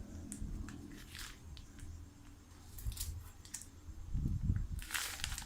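Kitchen handling noises: light clicks, scrapes and rustles of utensils and containers as an ingredient is measured out, with a cluster of soft thuds and swishes about four seconds in.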